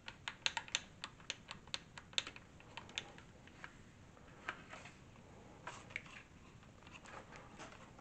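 Light plastic clicks and taps from the dust bin and filter housing of an Ultenic FS1 cordless stick vacuum being opened and handled. A quick run of clicks comes in the first three seconds, then a few scattered ones.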